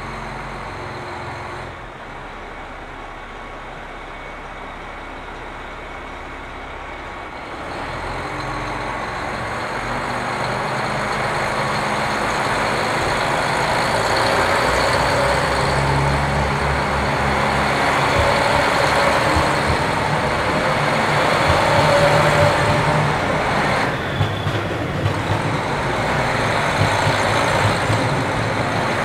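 JR Hokkaido diesel train running, its engine getting steadily louder through the first half. There is a brief drop about 24 seconds in, then a few sharp clacks near the end.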